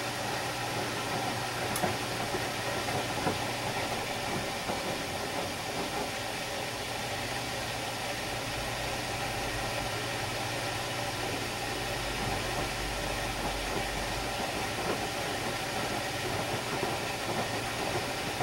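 Samsung WD136 direct-drive front-loading washer-dryer in its wash phase, the drum turning wet laundry in water: a steady mechanical hum with a deeper rumble between about eight and fourteen seconds in.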